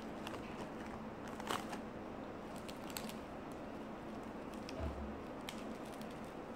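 Faint crunching and small clicks of eating and of handling fresh vegetables by hand, with a sharper tap about a second and a half in, over a steady low hum.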